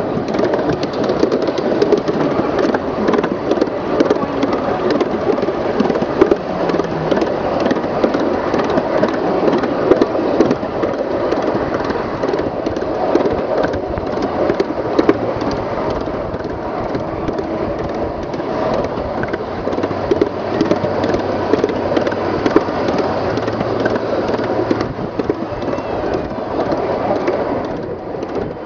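Ride-on miniature railway train rolling along its track, a dense, continuous clatter and rattle of wheels on small-gauge rails, heard from aboard.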